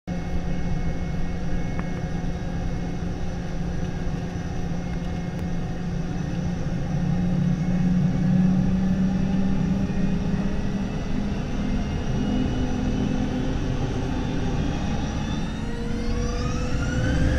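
Rolls-Royce BR715 turbofan of a Boeing 717, heard inside the cabin beside the aft-mounted engine, running at low power with a steady low rumble and hum. In the last couple of seconds a whine starts rising in pitch as the engine spools up for the takeoff run.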